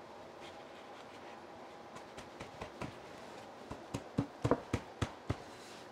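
Wooden breadboard end being pushed and worked onto the tenon of a solid-wood tabletop for a test fit. A run of about a dozen light wood-on-wood knocks and taps starts about two seconds in and comes thickest a second or so before the end.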